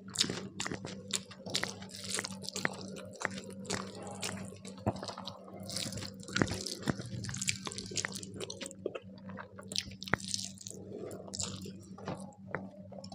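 Close-up eating sounds: a person chewing and biting a meal of rice and curries, with frequent wet lip smacks and crunches at an irregular pace.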